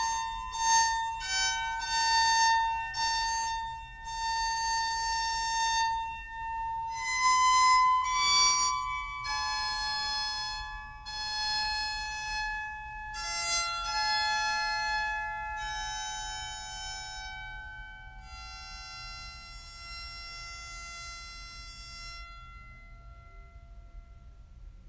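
Slow instrumental music: a melody of held high notes, with the last notes fading away shortly before the end.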